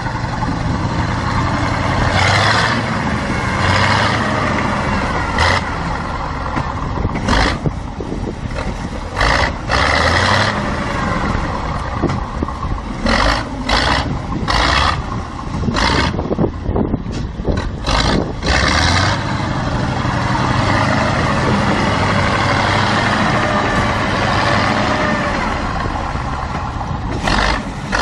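Engine of an off-road vehicle running under load as it pushes through icy water, its pitch rising and falling as it revs, with frequent short sharp knocks and crackles.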